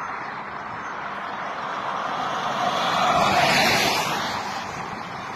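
A road vehicle passing by, growing louder to a peak about three to four seconds in and then fading, over a steady hiss.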